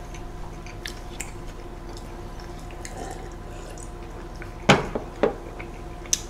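Close-miked eating sounds: wet chewing and small lip-smacking clicks on a large burger. A little over two-thirds through come two louder gulps about half a second apart as cola is drunk from a glass.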